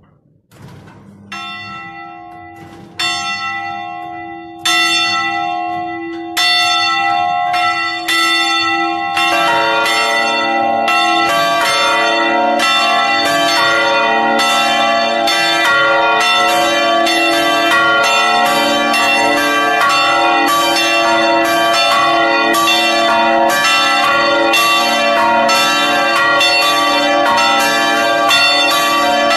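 Three swinging church bells in a steel belfry ringing a full peal: the small 150 kg E'' bell and the 200 kg D'' bell, both cast in Dąbrowa Górnicza in 1968, and the 490 kg A-sharp bell cast by Felczyński of Przemyśl in 2001. A single bell begins striking about a second in, roughly every second and a half and louder with each stroke as its swing builds. From about nine seconds in, deeper bells join and all ring together in a dense, overlapping peal.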